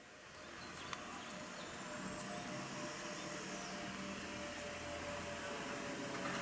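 Airbus A321 jet airliner passing overhead on approach, its engine noise swelling to a steady rumble over the first two seconds, with a thin high whine slowly rising in pitch. A single sharp click about a second in.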